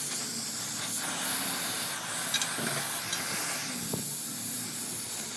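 Gas welding torch flame hissing steadily as filler rod is melted into a crack in an alloy wheel rim, with a few faint ticks.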